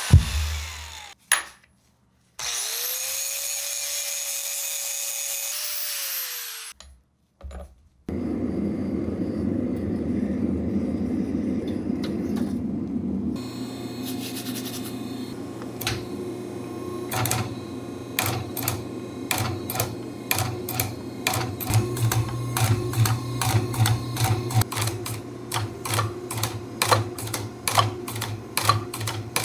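An angle grinder spins up, runs steadily and winds down. Then a forging power hammer's low machine hum sets in, with a run of sharp metallic blows on hot leaf-spring steel that come faster, several a second, near the end.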